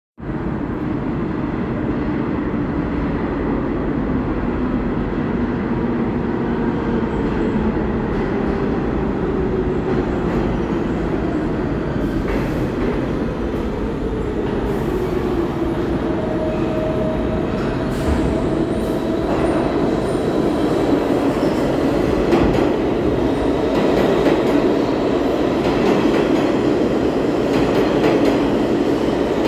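New York City subway trains running through an underground station: a continuous heavy rumble with rail clatter and a whine that glides up and down. It grows louder in the second half as a stainless-steel R160B train comes in along the near platform track.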